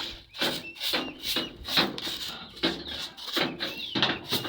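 Quick run of scrapes and knocks, about two or three a second, with short high chick peeps between them.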